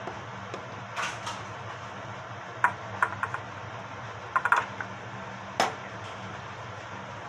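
Light metallic taps and clinks of a metal scoop against a metal madeleine pan as flour is dusted into it, coming in small clusters, with a steady low hum underneath.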